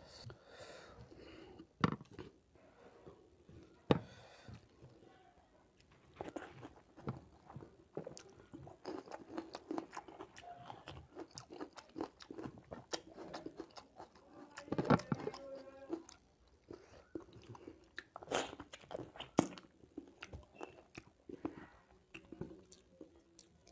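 Close-miked eating sounds: fingers mixing rice with pork curry and gravy on a plate, and chewing with wet mouth clicks and smacks. A few sharp clicks stand out now and then.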